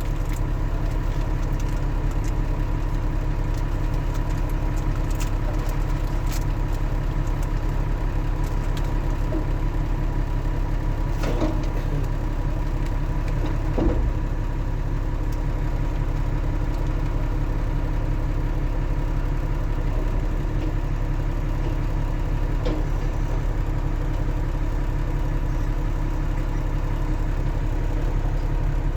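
New Holland B90B backhoe loader's diesel engine running steadily, with a couple of faint knocks about halfway through.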